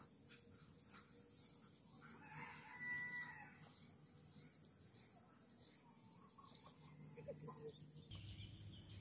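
A rooster crowing once, faintly, about three seconds in, with small birds chirping faintly and otherwise near silence.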